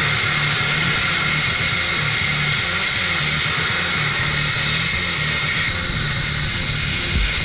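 Sandblasting nozzle hissing steadily as the abrasive blast strips paint off a steel foam tank, with an uneven low hum underneath.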